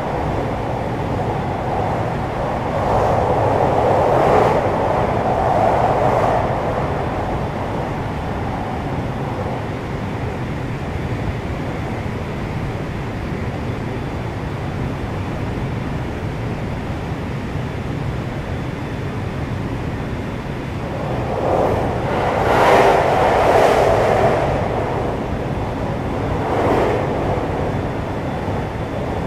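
JR West 521-series electric multiple unit running on the line, its motor car KuMoHa 521-34 giving a steady rumble of wheels on rail. The noise swells louder twice, about three seconds in and again a little past twenty seconds.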